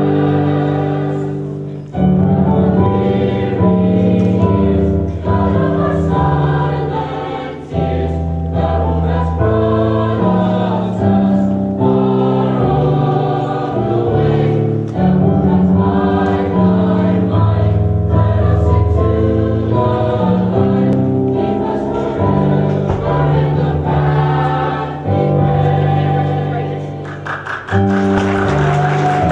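High school choir singing in parts, holding sustained chords that change every second or two.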